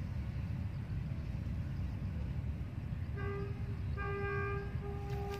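Steady low rumble, with a vehicle horn sounding three times from about three seconds in: one short toot, then two longer ones.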